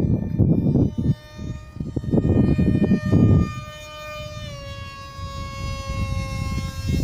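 A small aircraft flying overhead: a steady, high engine whine that drops slightly in pitch about four and a half seconds in as it passes. Wind buffets the microphone in the first few seconds.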